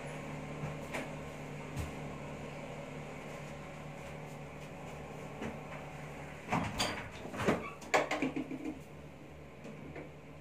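Household handling noises: a couple of faint clicks, then a cluster of knocks and clatter from about six and a half to nine seconds in, like a cupboard, door or bin lid being worked, over a steady low hum.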